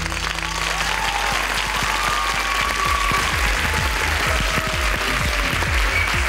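A song's last notes end about half a second in, and a studio audience breaks into steady applause.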